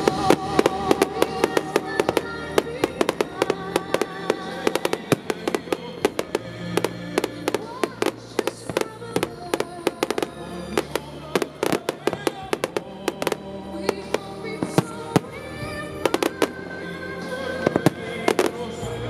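Fireworks display: aerial shells bursting in rapid, irregular bangs and crackles over music.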